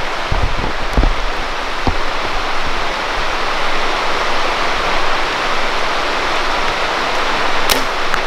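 Steady rushing wind noise on the microphone, buffeting it with a few low thumps early on. Near the end comes a single sharp snap of a bow being shot, followed about half a second later by a faint tick.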